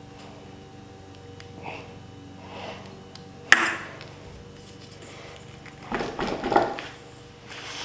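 Hand tools and bike parts being handled during a stem cap install. There is one sharp tap about three and a half seconds in, then a second or so of clattery handling near the end. A faint steady tone runs underneath.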